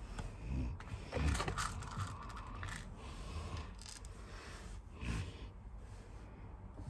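Small plastic fuse beads being picked up and set onto a plastic pegboard: scattered light clicks and scrapes, with a louder clatter about a second in and another near five seconds.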